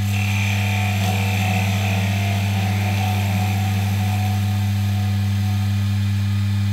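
Wood lathe motor running with a steady hum while a chisel cuts into the end of the spinning walnut blank, with a thin high whine through the first half of the cut.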